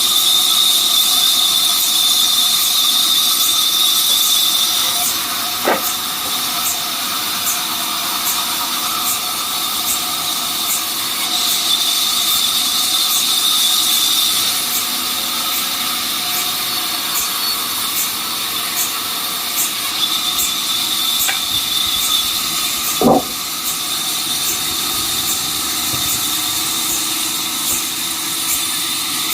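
Sawmill saw running through timber: a steady high whine over hiss that swells louder in stretches, with two sharp knocks, one about six seconds in and one near the three-quarter mark.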